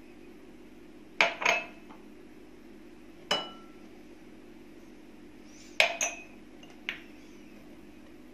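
A drinking glass knocking and clinking against the rim of a glass mixing bowl as flour is tipped out of it. There is a double knock about a second in, a single ringing clink a couple of seconds later, then another double knock and a lighter tap. A steady low hum runs underneath.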